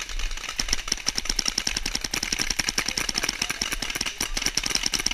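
Rapid paintball gunfire: markers fired in fast strings, many sharp pops a second, thickening about a second in.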